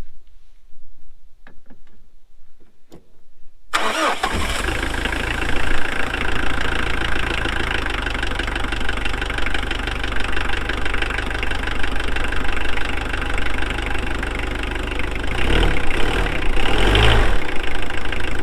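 A Mitsubishi 4D56 four-cylinder diesel, its fuel system just bled after a fuel filter change, is quiet for a few seconds of glow-plug preheating, then cranks and starts about four seconds in and keeps running steadily. Its note rises and falls briefly near the end.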